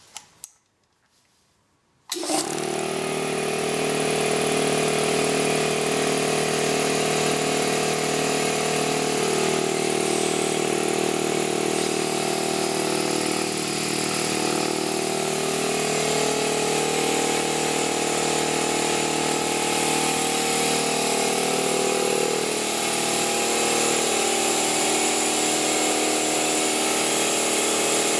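A Harbor Freight 29-gallon oil-lubricated air compressor (cast-iron pump driven by an electric motor) switches on about two seconds in and runs steadily. It is on its unloaded break-in run, with the drain cock open so that the pumped air escapes instead of building pressure in the tank.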